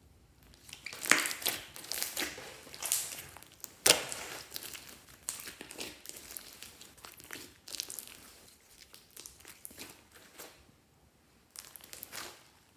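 Glossy slime being squished and stretched by hand, making irregular sticky crackles, clicks and pops. The sharpest pops come about a second and about four seconds in, and there is a short lull about ten and a half seconds in.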